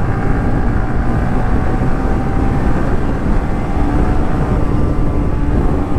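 Motorcycle engine running at road speed under heavy wind rush on a helmet-mounted microphone, with a faint engine tone that slowly sinks in pitch and a lower steady tone coming in about two-thirds of the way through.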